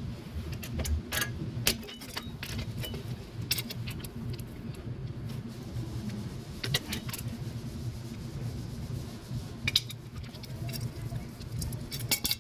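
Small metal parts clinking and rattling as they are handled, with scattered sharp clicks throughout and a quick cluster near the end, over a steady low hum.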